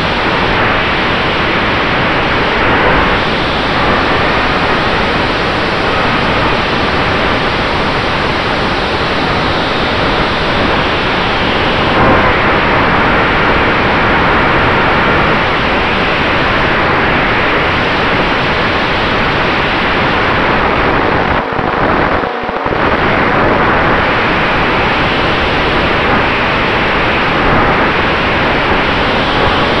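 Loud airflow noise rushing over the microphone of a camera riding on an RC P-47D in flight, with the faint steady tone of its brushless electric motor and four-blade propeller underneath. The noise dips briefly twice about two-thirds of the way through.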